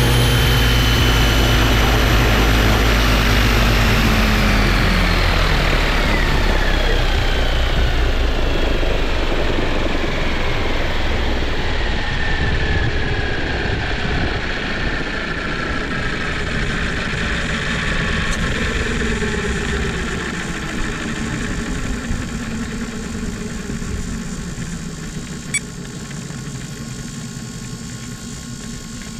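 Electric motor, gears and main rotor of an Align T-Rex 700E RC helicopter spooling down after landing, the whine falling steadily in pitch and fading.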